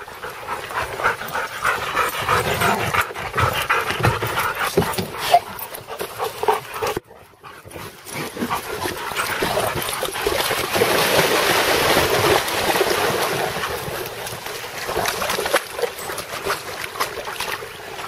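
Several dogs barking, whining and panting over splashing water while they swim and play. The sound cuts out briefly about seven seconds in.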